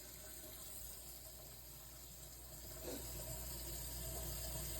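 Faint steady hiss of noise that grows a little louder over the second half.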